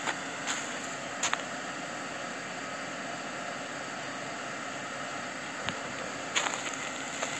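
Steady hiss of outdoor background noise on a handheld phone's microphone, with a few short faint clicks about a second in and again near the end.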